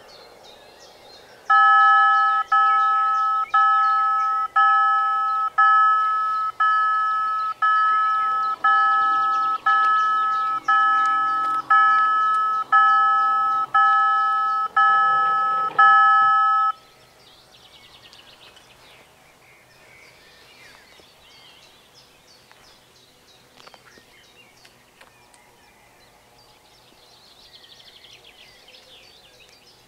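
Level-crossing warning bells ringing about once a second, fifteen strokes each dying away, signalling that the crossing is closing as the barriers lower for an approaching train. They start about a second and a half in and stop suddenly about 17 seconds in. Faint birdsong follows.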